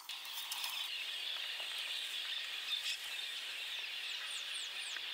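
Rainforest ambience: a steady, high-pitched insect chorus, with three or four short falling bird chirps near the end.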